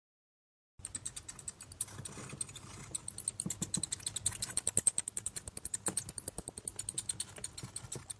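Bats chittering: a rapid run of high clicks and squeaks, many a second, starting about a second in.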